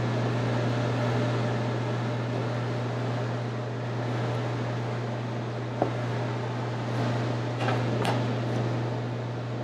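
Steady low hum with an even rush of air, like a ventilation fan running. There is a single short tap about six seconds in and a couple of soft knocks near the end.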